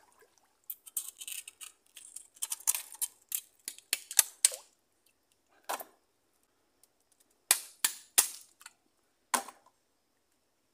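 Irregular sharp snaps and crackles, about a dozen scattered through the stretch, some in quick clusters and others single, with near-silent gaps between them.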